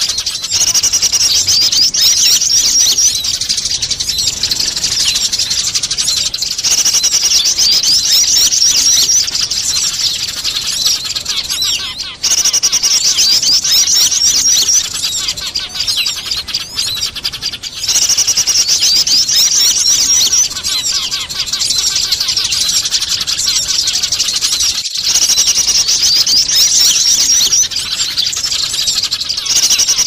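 Bird-lure recording of small birds calling in a dense, noisy chatter, combined with Eurasian tree sparrows squabbling. The rapid chirping comes in loud stretches of a few seconds, each followed by a short lull.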